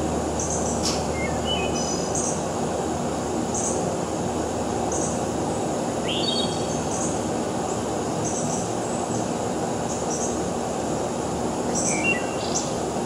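Outdoor ambience: a steady low rumble with birds calling over it, short rising whistles about a second in, around six seconds in and near the end, and a faint high chirp repeating about once a second.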